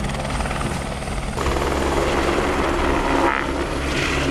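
Firefighting helicopter carrying an underslung water bucket, its rotor noise steady and loud as it hovers and flies past.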